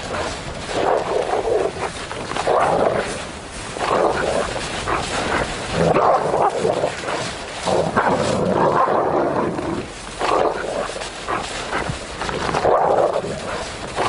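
Grey wolves fighting, two females contesting pack dominance: rough snarls and growls in repeated bursts every second or two.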